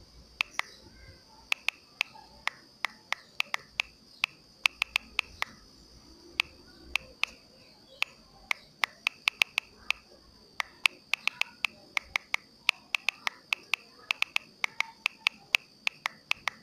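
Typing on a smartphone's touchscreen keyboard: a quick, irregular run of sharp key clicks, several a second, with brief pauses between words.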